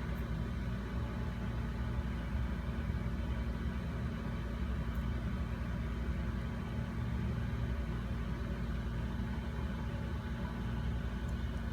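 A steady low hum with no distinct events: constant background machine or electrical noise.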